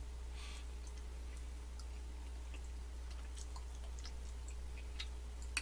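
Quiet chewing of a soft-shelled macaron: faint, scattered wet mouth clicks, with one sharper click near the end, over a low steady hum.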